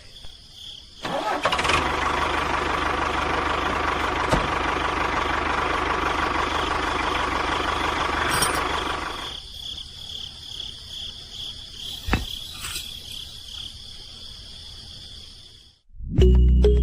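A small motor runs steadily for about eight seconds, then drops away to a faint hum, with a thin high whine above it. Music starts near the end.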